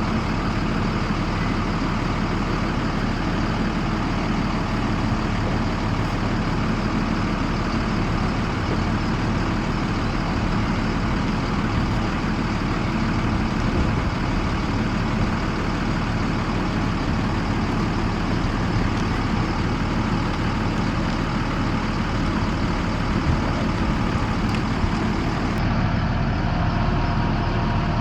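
Yellow school bus engine idling steadily, a low, even running sound with no revving.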